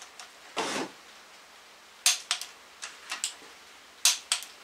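Click-type torque wrench tightening the engine's oil pan bolts: two sharp clicks about two seconds apart as bolts reach torque, each followed by a few quieter ratchet clicks, with a short rustle before the first.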